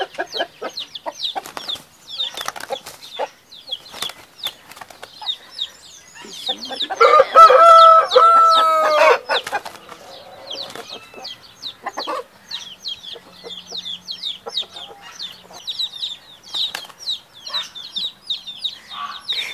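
Índio Gigante hens fighting: flapping wings and scuffling in the dirt, with clucking. A rooster crows once, loudly, for about two seconds, about seven seconds in. Chicks cheep rapidly and high through the second half.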